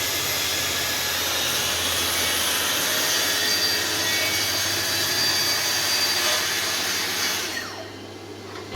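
Festool TS 55 plunge track saw running steadily as it cuts through sheet material for cabinet boxes, its motor winding down with a falling pitch near the end.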